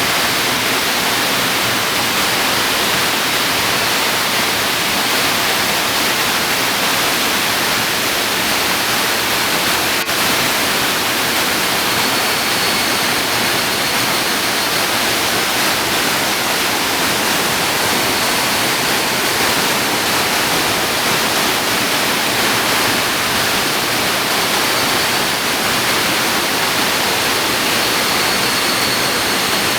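Yukiwa Falls, a waterfall, rushing water, a steady full hiss with no let-up.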